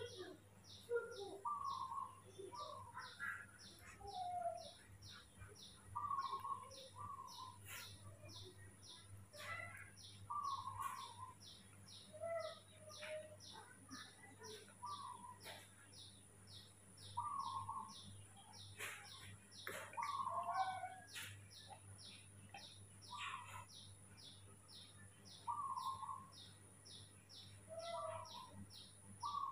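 Faint birds chirping: short calls every second or two over a high, even note repeated a little faster than once a second.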